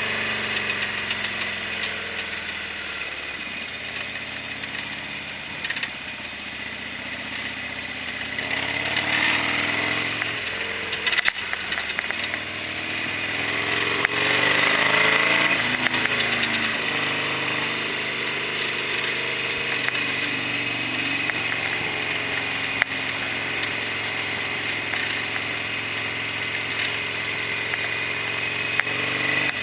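Harley-Davidson Sportster XL1200R's air-cooled V-twin running on the move, its pitch rising and falling several times as the rider opens and closes the throttle and changes gear, over steady wind hiss. A few sharp ticks sound about eleven, fourteen and twenty-three seconds in.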